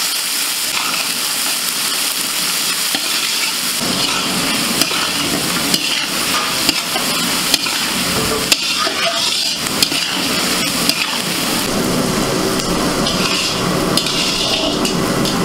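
Chopped onions sizzling steadily as they fry in hot oil in a large metal kadai, stirred with a flat metal spatula that now and then clicks and scrapes against the pan.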